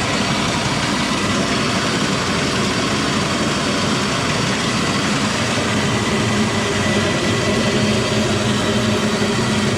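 An 80-year-old bulgur mill running steadily: an even, loud mechanical rumble with a low hum underneath.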